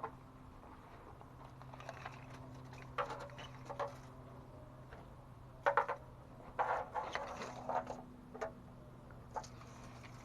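Intermittent rustling and tapping of material being handled and placed, in short clusters, over a steady low hum.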